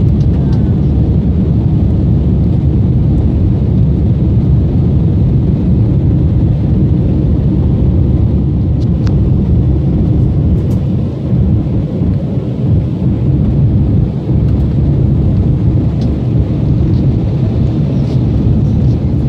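Steady low roar of an Airbus A320's engines and rushing air, heard from inside the passenger cabin as the airliner climbs after takeoff.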